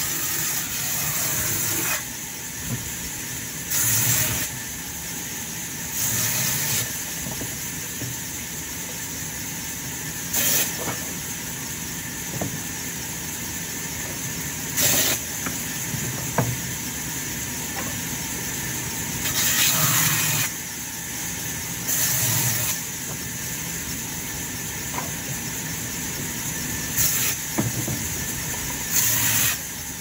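Sawmill band saw running steadily, its blade cutting through short logs fed by hand, with a louder burst of cutting noise of about a second each time the blade goes through the wood, about ten times over.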